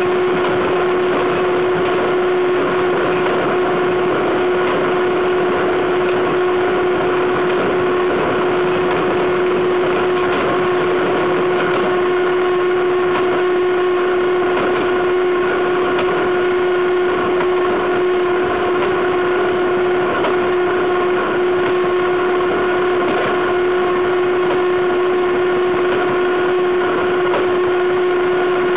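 Freight wagon wheels rolling on the rail at speed, heard right at the bogie: a loud, steady running noise with a steady whining tone over it.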